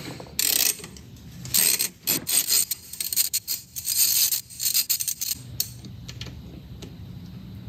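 Socket wrench on an extension loosening an engine oil drain bolt: a run of quick metallic clicks and clinks from the ratchet and socket, stopping about five seconds in.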